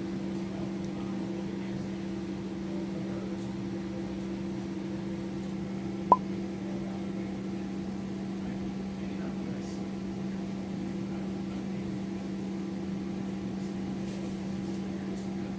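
A steady low electrical or mechanical hum, with a single sharp click about six seconds in.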